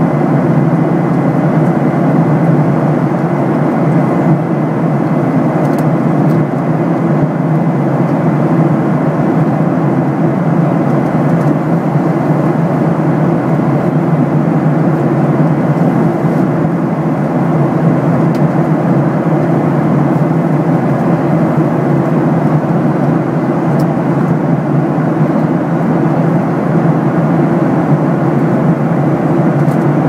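Steady drone of an airliner in cruising flight, heard inside the cabin: engine and airflow noise, unchanging throughout.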